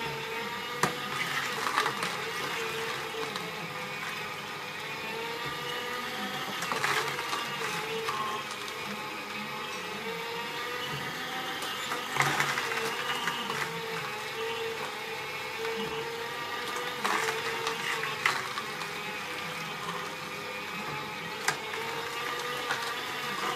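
Slow (masticating) juicer running with a steady motor hum while its auger crushes carrot sticks, with louder crunches every few seconds.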